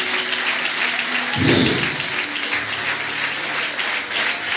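Congregation clapping and applauding, a dense steady clatter of many hands, with one louder low thump about a second and a half in.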